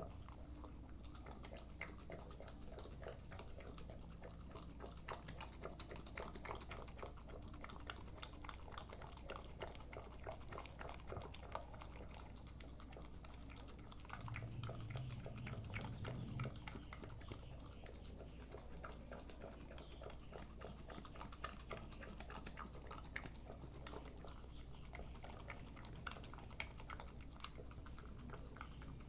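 Boxer puppy chewing and smacking on banana: a steady run of small, soft clicks. About halfway through, a low drone comes in for a couple of seconds.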